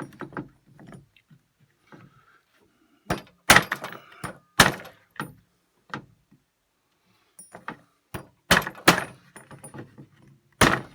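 A hammer striking a piece of metal laid over an edge to bend it: sharp blows with a short ring, in two groups a few seconds apart.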